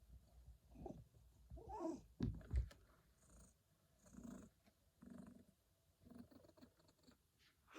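Pet cat snoring faintly in its sleep: a run of soft breaths, about one a second, with a louder pair a little over two seconds in.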